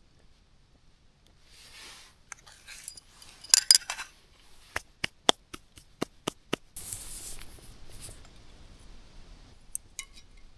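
A couple of sharp clinks, then a quick run of about seven crisp clicks, followed at once by a steady hiss that fades slowly.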